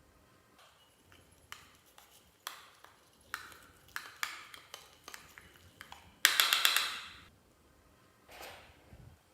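Handling of makeup and slime: a string of sharp taps and clicks, then a loud crackling burst lasting under a second about six seconds in, and a soft rustle near the end.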